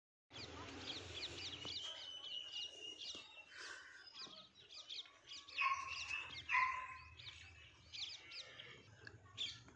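Small birds chirping in quick, repeated short high notes, with two louder, longer calls a little after the middle.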